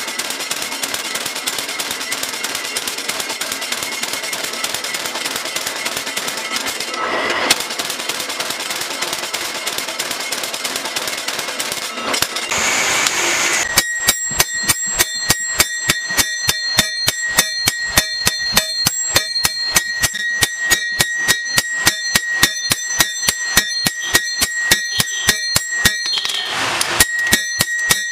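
A power hammer pounds red-hot steel with rapid, machine-like blows for about the first twelve seconds. After a short break, a hand hammer strikes the hot steel on an anvil at a steady pace, each blow ringing.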